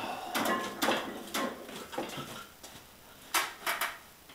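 A handful of short, sharp clicks and knocks spread out, with three quick ones close together near the end.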